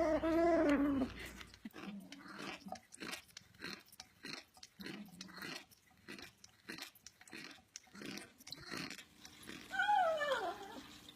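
A cat's drawn-out yowl ends about a second in, followed by several seconds of irregular chewing and crunching as the cat bites on something, then a short meow falling in pitch near the end.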